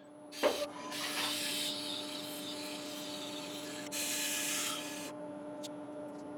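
Wood lathe running with a steady hum and a faint high whine while sandpaper is pressed against a spinning wooden bowl. The sanding makes a hissing rub for the first five seconds or so, loudest about four seconds in, then the lathe runs on alone.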